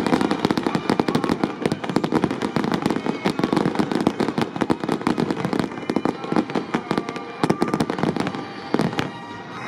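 Aerial fireworks display: a dense, rapid barrage of bangs and crackling from bursting shells, thinning out briefly near the end.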